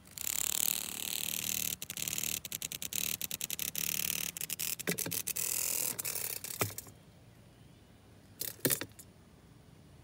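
A cicada held between fingers giving its harsh, rasping distress buzz, pulsing rapidly, which stops abruptly about seven seconds in. A couple of short knocks follow near the end.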